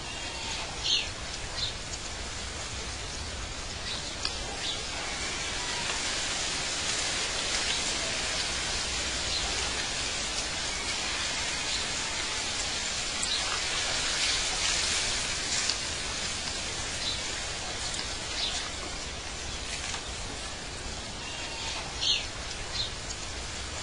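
Outdoor nature ambience: a steady hiss like wind or running water, with short bird chirps scattered a few seconds apart.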